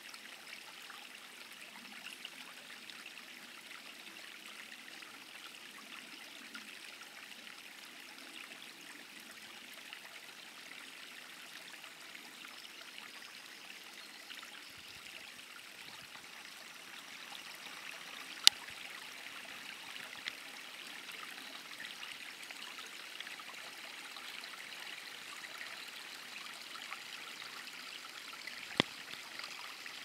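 Low, steady rushing of flowing water, like a small stream. Two sharp clicks cut through it, a louder one a little past halfway and another near the end.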